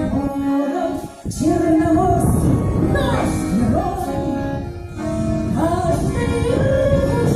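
A woman singing with musical accompaniment, with strong wind rumbling on the microphone under the music.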